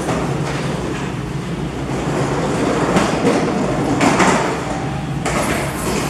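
Railway station ambience: a steady low hum with several sharp knocks and clatters.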